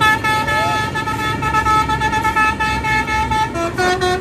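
Bus 'telolet' horn, a multi-tone musical air horn, sounding one long held chord, then switching to a quick run of shorter notes at different pitches near the end.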